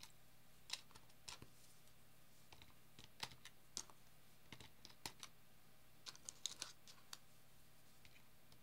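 Faint, scattered clicks and taps of small plastic parts being handled and pressed into place: push-button caps and an acrylic case plate going onto an oscilloscope kit's circuit board.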